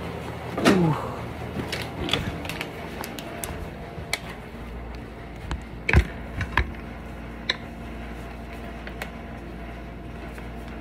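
Scattered clicks and knocks from a plastic water bottle being picked up and handled, the loudest about six seconds in with two more soon after. A faint steady low hum sets in partway through.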